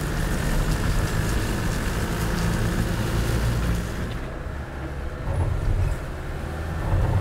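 Land Rover Defender 4x4's engine running steadily at low speed, with wind hiss on the outside microphone. About four seconds in, the hiss drops away and the engine is heard as a low drone from inside the cabin.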